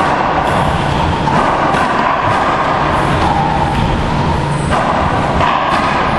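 Steady, loud rumbling noise with a hum that shifts in pitch a few times, like a running air handler or fan; no ball strikes.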